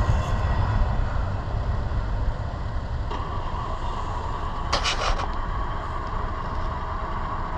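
Low rumble of a double-stack intermodal freight train rolling away on the rails, slowly fading as the last cars recede. A brief sharp clatter about five seconds in.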